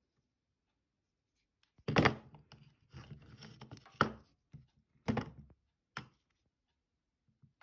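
Pliers converted into spoon benders being handled and put down on a wooden board: four or so knocks and clunks, the loudest about two seconds in, with a light rattle of handling between them.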